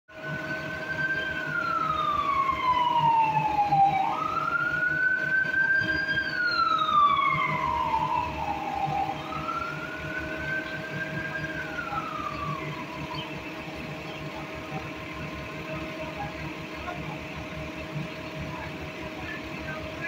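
A siren wailing in three slow rising-and-falling sweeps that fade out a little past halfway, over a steady low hum.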